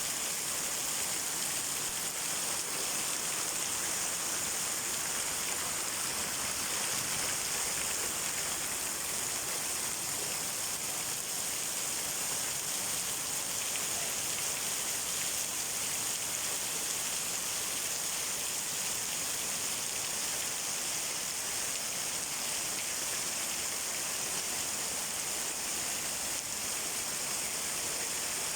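Heavy tropical downpour: steady, dense rain pouring down.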